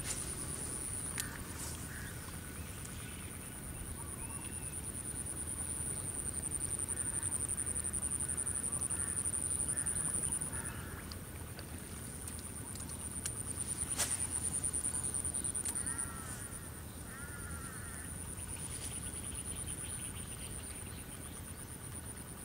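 Rural paddy-field ambience: a steady high-pitched insect drone with scattered bird calls, including a run of repeated calls about two-thirds of the way through. There is one sharp click about 14 seconds in.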